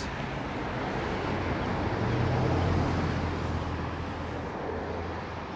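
Road traffic passing on a busy multi-lane road: a steady rush of tyres and engines that swells as a vehicle goes by about two to three seconds in, then slowly eases.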